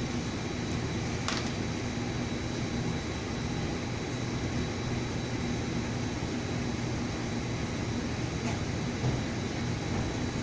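Steady mechanical hum with a thin high whine running through it, and a single sharp click about a second in.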